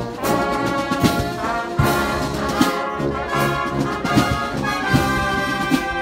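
Marching brass band playing as it passes: trumpets and sousaphones carrying a held, sustained melody over a steady drum beat that falls roughly every 0.8 seconds.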